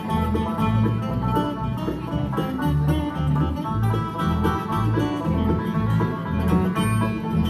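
Bluegrass band playing an instrumental break between sung verses: banjo, fiddle, mandolin and acoustic guitar picking over a steady upright-bass beat.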